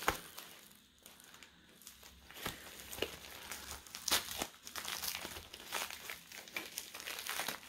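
White plastic wrapping crinkling as hands squeeze and tear at the end of a rolled-up package. Scattered crackles, sparse in the first two seconds, then busier and louder.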